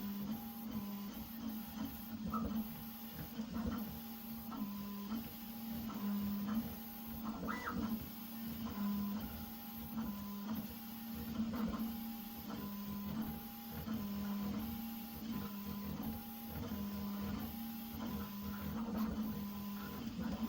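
Prusa XL 3D printer printing, its stepper motors whining in steady tones that change pitch every half second to a second as the print head moves.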